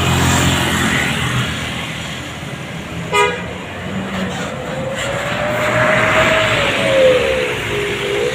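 Road traffic passing: an engine rumble dies away in the first second or so, and a short horn toot comes about three seconds in. Then a vehicle goes by, its engine note rising and then falling as it passes, with tyre and road noise.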